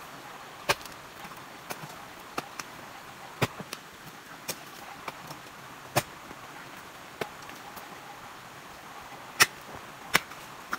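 A hoe striking hard clay soil: single sharp blows at irregular intervals of one to three seconds, with softer knocks of clods between them.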